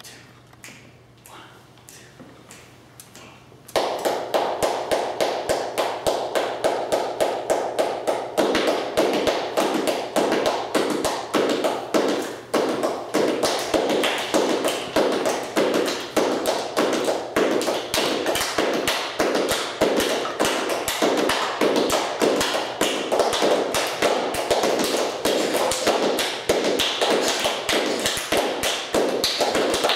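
Hand-clapping body percussion by a small group of a man and children, playing interlocking improvised rhythms. A few quiet taps at first, then about four seconds in the whole group comes in loud with a dense, steady clapping pattern.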